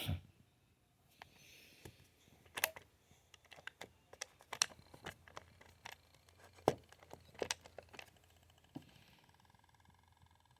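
Irregular clicks and knocks of the old GE electric alarm clock being handled, with a sharper knock at the very start; a faint steady hum comes in about eight seconds in.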